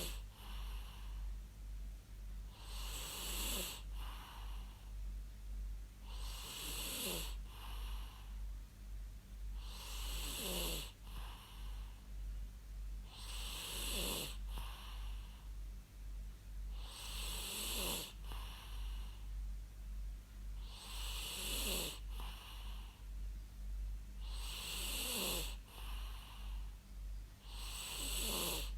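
A person snoring in an even rhythm, about eight snores, one every three and a half seconds, each with a pitch that slides downward and a breathy hiss.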